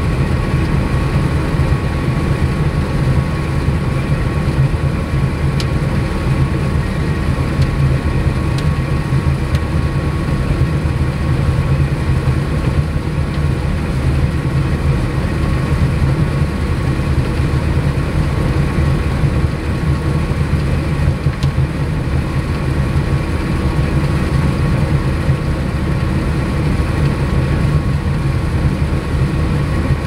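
Claas Lexion combine running steadily while harvesting soybeans, heard inside the cab: a continuous low engine and threshing drone with a thin, constant high whine over it.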